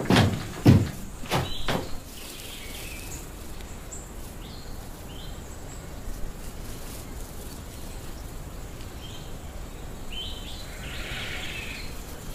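A few sharp thumps in the first two seconds, then a steady hiss of ambience with faint, scattered bird chirps.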